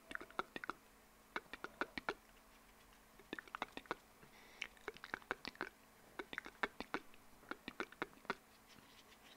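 Close-miked wet mouth sounds: runs of quick tongue and lip clicks, several a second, coming in about six clusters with short pauses between.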